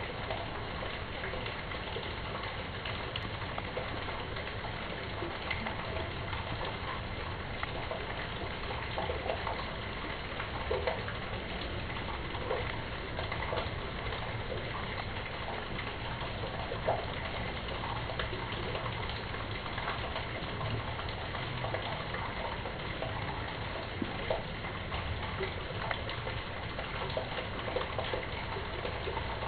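Rainwater gushing through a metal street-drain grate at the kerb of a cobbled gutter. It is a steady rush of water with small irregular splashes and drips scattered through it.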